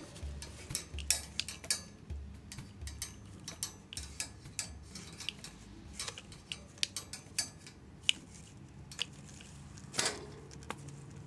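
Many irregular light clicks and taps of a long-handled cat-teaser wand knocking and rattling against the bars of a wire pet cage as it is worked in and out.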